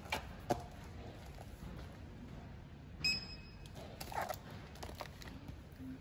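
Library self-checkout kiosk giving one short electronic beep about three seconds in, the sign that a book laid on the pad has been registered. Near the start there are two light knocks of a book being set down on the counter.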